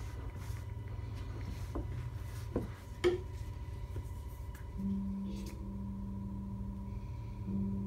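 Plywood panels handled and set down on a workbench: a few short, sharp wooden knocks, the loudest about three seconds in, over a steady low hum. In the second half a steady low tone comes in, breaking off twice.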